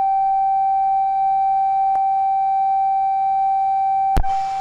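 Loudspeaker sealed in a bell jar playing a steady pure tone. About four seconds in there is a click and a vacuum pump starts with a hissing whir, and the tone begins to weaken as the air is pumped out of the jar.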